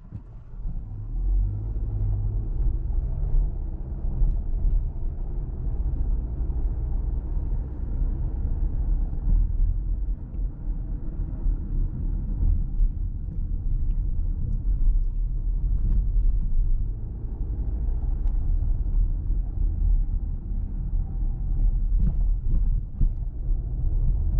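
Steady low rumble of road and engine noise inside the cabin of a 2024 Volkswagen Tiguan with the 1.5 eTSI turbocharged four-cylinder mild-hybrid engine, driving at low town speed. It gets louder about half a second in, then holds.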